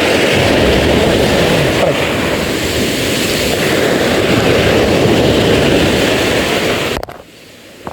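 Steady rush of wind and sea, cutting out sharply about seven seconds in.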